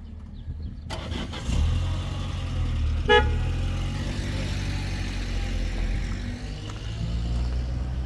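Peugeot 405 saloon's engine comes in about a second in and runs steadily as the car pulls away. About three seconds in there is one short horn toot.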